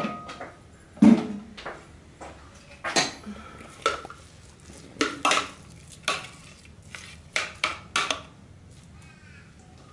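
A utensil clinking against a bowl as soft macadamia nut cheese is spooned into a salad: about a dozen short, irregularly spaced knocks, the loudest about a second in.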